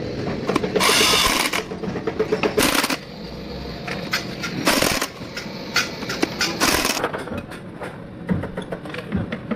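Metal gearbox parts clinking and knocking in a workshop, with four short bursts of rushing hiss.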